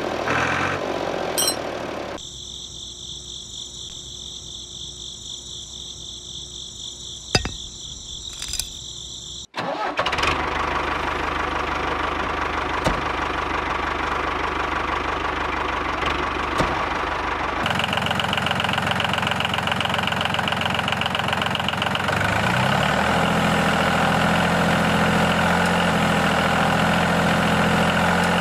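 Steady engine-like machine running, broken by several abrupt cuts. Near the end a low hum rises in pitch and settles into a steady run.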